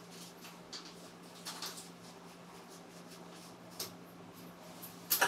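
Faint, scattered clicks and taps of small plastic parts being handled as a shower filter is changed, over a steady low hum.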